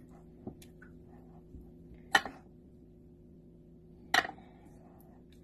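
Spatula stirring batter in a glass mixing bowl, with two sharp knocks against the bowl about two seconds apart, over a steady low hum.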